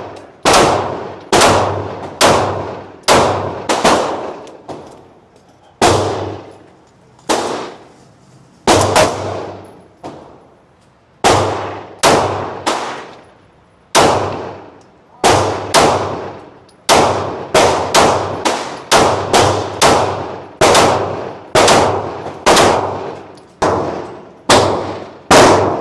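A SIG Sauer pistol fired in a long string of single shots, about thirty in all, roughly one a second with a few pauses and some quicker pairs. Each shot has a ringing echo that dies away over about half a second.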